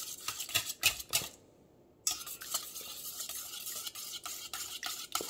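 Wire whisk beating eggs and milk in a stainless steel bowl: rapid clicking and scraping of the wires against the metal. It breaks off for about half a second, a second and a half in, then goes on.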